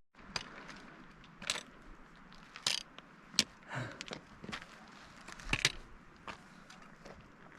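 Footsteps crunching and scraping on loose gravel and rock, an irregular step roughly once a second.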